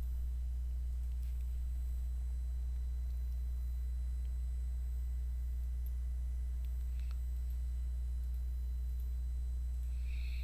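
Steady low electrical hum from the recording setup, with a faint tick or two.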